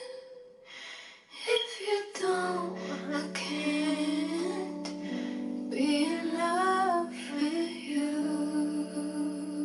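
Background music: a song with a woman singing a gliding melody over held notes, starting after a brief quiet gap about a second and a half in.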